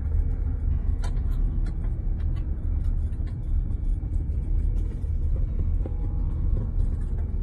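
Car driving on a gravel road, heard from inside: a steady low rumble of tyres and road with scattered small clicks throughout.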